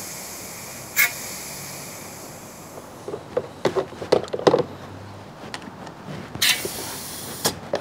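Compressed air hissing into a welded aluminium radiator pipe held underwater for a leak test, with a sharp click about a second in; the hiss stops about three seconds in. After that come water splashes and knocks as the pipe is moved in the plastic tub, and a short hiss of air near the end.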